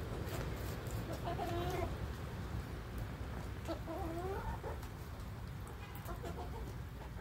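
Marans chickens clucking: two drawn-out, wavering calls, about a second in and about four seconds in, with fainter clucks later.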